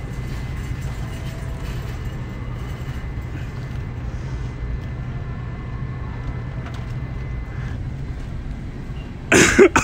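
Steady low rumble of a shopping cart rolling over a store floor. A sudden, loud, short burst of noise comes near the end.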